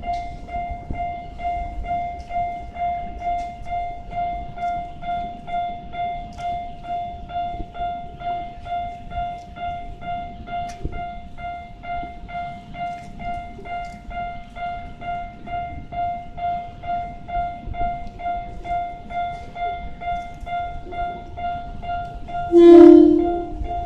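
Electronic railway level-crossing alarm ringing steadily, a single pitched tone struck about twice a second. Near the end a train horn gives one short, loud blast.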